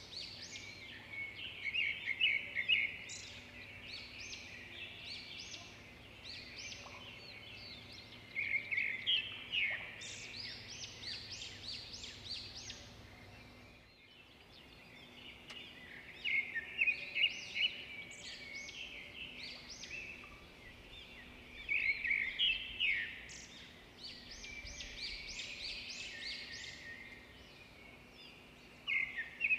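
Birds chirping and twittering in clustered bursts over a faint steady hum, with a brief break about halfway through.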